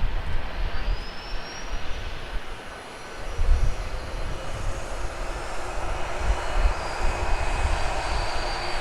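Jet airliner engines running at ground idle: a steady rushing sound with a thin whine on top, one whine rising in pitch over the first couple of seconds, and an uneven low rumble beneath.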